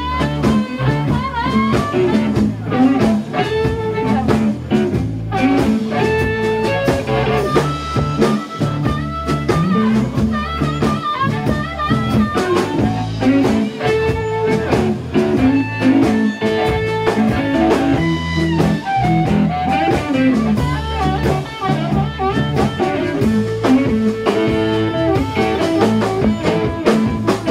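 Live blues band: a harmonica, cupped against a hand-held microphone and amplified, plays a solo over bass guitar and drums.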